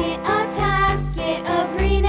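Background music: a cheerful children's-style tune with a wavering melody over steady bass notes.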